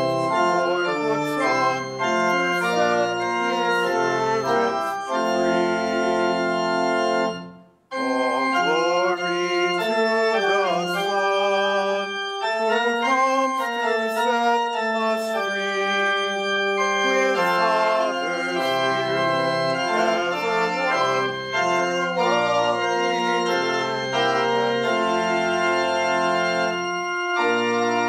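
Church organ playing a hymn in sustained chords, with a short break about seven and a half seconds in between verses.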